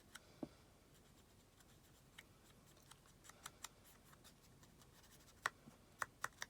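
Mostly near silence with a few faint clicks, then a quicker run of light taps near the end: a cotton bud being dabbed with ink onto card.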